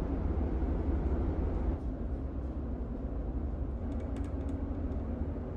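Steady low rumble of a ferry's engines carried through the hull, heard inside the ship, with a few faint ticks about four seconds in.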